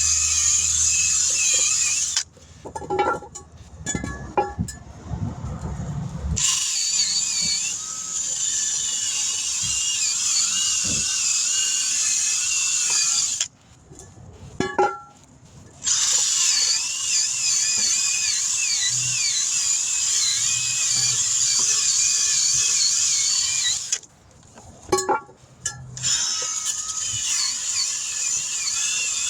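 High-speed air tool whining in long runs, its pitch wavering as it bears on the metal while cleaning corrosion off a wheel rim. It stops twice for a few seconds, with a few knocks and taps in the pauses.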